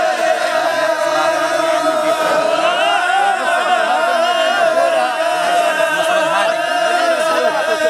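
A group of men chanting together in unison in a traditional Omani wedding chant, their voices holding one long steady note while other voices waver around it.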